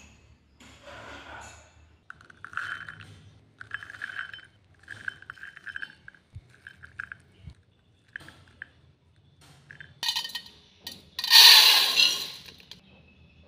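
Fresh black beans clinking and rattling against a bowl in short bursts, about one a second. About ten seconds in, a stream of tap water starts pouring onto raw rice in a bowl with a loud rush to rinse it, then tails off near the end.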